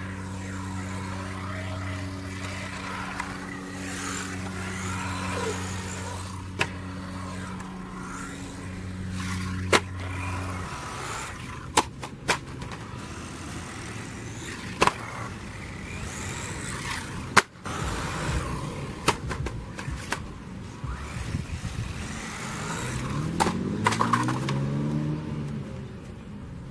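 Small electric RC monster truck driving over hard ground: tyres rolling and scraping, with scattered sharp knocks and clicks from the plastic chassis. A steady low hum runs through about the first ten seconds, and a rising whine comes near the end.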